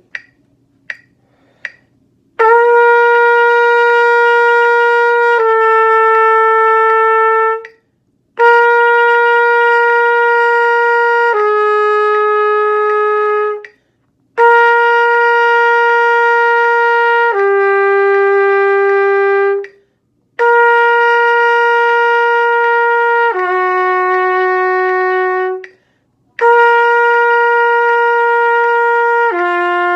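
Trumpet playing a long-tone exercise: five phrases, each a note held for about three seconds that then slurs down to a lower held note, with short breaths between. The lower note sits a little lower with each phrase.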